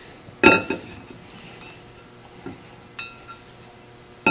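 Heavy-duty differential cover clinking and ringing as it is handled and set down over alignment dowels onto the gasketed housing: a sharp metallic clink about half a second in, a lighter one about three seconds in, and another near the end.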